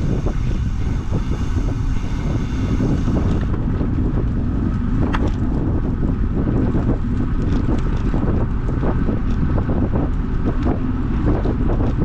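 Steady wind noise buffeting the microphone of a moving rider, with rumbling road noise and scattered small knocks.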